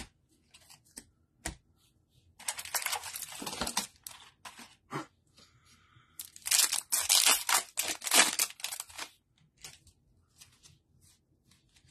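Plastic wrapper of a Prizm football card pack crinkling and being torn open, in two spells, the second longer and louder, with light clicks of cards being handled between.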